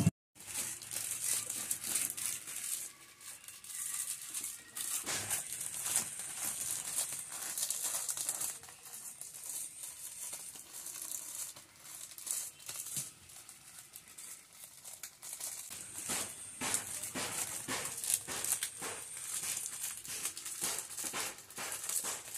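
Red plastic wrapping being torn and pulled off a new motorcycle tyre by hand: a continuous run of crinkling and crackling with short tearing rips.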